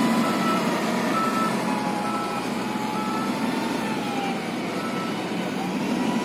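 Diesel engine of an SDLG wheel loader running steadily under a reversing alarm giving short, evenly spaced beeps about once a second, which fade in the second half.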